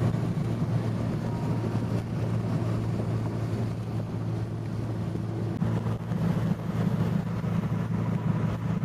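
Nissan CA20E four-cylinder engine droning steadily at highway cruise, heard inside the 200SX's cabin, with road and wind noise.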